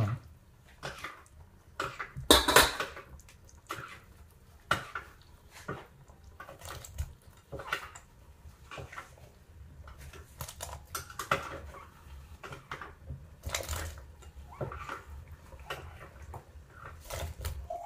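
Kitchen clatter: a metal ladle and dishes clinking and knocking against a stainless steel soup pot in irregular strikes, the loudest about two and a half seconds in, while sliced cèpes are tipped from a bowl into the broth.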